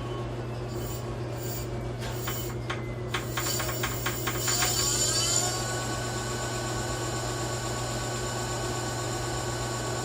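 E-bike electric motor being run: a quick run of clicks, then a whine that rises in pitch about four seconds in and settles into a steady high hum over a low steady drone.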